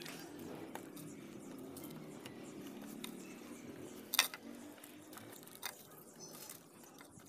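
Soft taps and clicks of chopped fruit and egg peels dropped by hand into a glass jar, with one sharper click about four seconds in, over faint low background noise.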